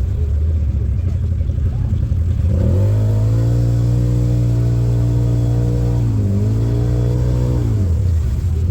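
ATV engine speeding up a few seconds in and holding steady. It dips briefly and picks back up, then slows back down near the end.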